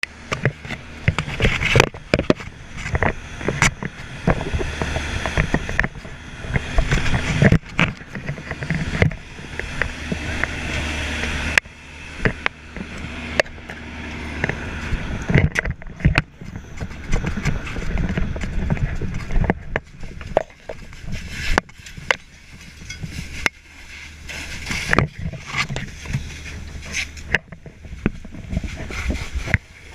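Fire apparatus diesel engine running with a steady low hum, fading in the last third, under frequent knocks, clatter and rubbing from gear and the body-worn camera as the wearer moves.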